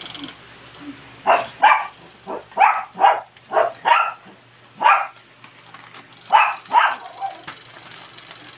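Puppies yapping in short, sharp play barks as they wrestle, about a dozen in quick runs with a short pause near the middle.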